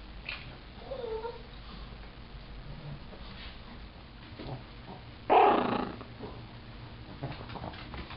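A dog playing with a chicken toy: a short, soft whine about a second in, then one loud, short bark-like burst about five seconds in, with a few faint clicks near the end.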